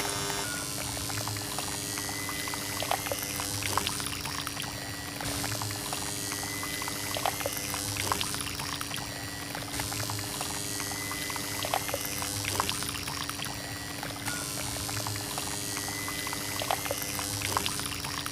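Water pouring and splashing from a small toy water pump, over a steady hum.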